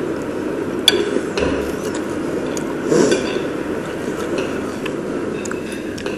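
Metal knife and fork clinking and scraping on a plate while cutting a battered spam fritter, with a sharp clink a little under a second in and a louder scrape about three seconds in.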